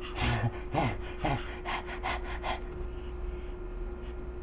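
An animal making a quick run of short, breathy snuffling noises, about three to four a second, a few with a brief squeaky rise in pitch, stopping about two and a half seconds in.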